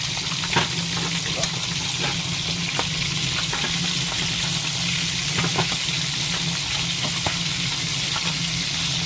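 Milkfish intestines and fish pieces frying in hot oil in a metal wok: a steady sizzle with scattered pops, and a metal spatula stirring through the oil. A steady low hum runs underneath.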